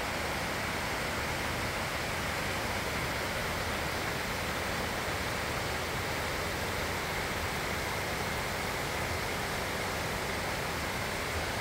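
Lodore Falls, a waterfall cascading over boulders, giving a steady rush of water.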